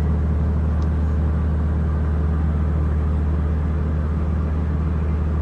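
A large engine running steadily, a low, even drone with no change in speed.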